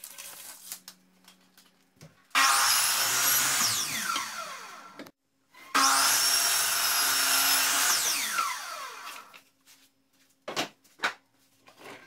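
Craftsman 12-inch miter saw cutting pine tongue-and-groove boards to length, twice. Each time it starts sharply, and the blade winds down with a falling whine after the cut. A couple of short knocks come near the end.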